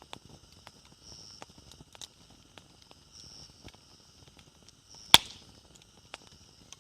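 Wood fire crackling: irregular small snaps and ticks, with one loud sharp pop about five seconds in.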